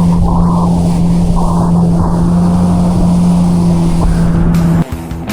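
Steady motor drone with a constant low hum, cutting off suddenly near the end, when rock music with guitar starts.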